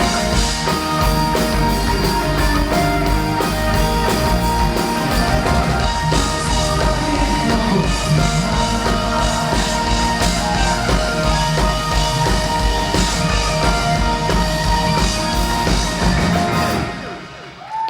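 Live pop-rock band playing the closing bars of a song, with guitars and a drum kit, ending sharply about a second before the end.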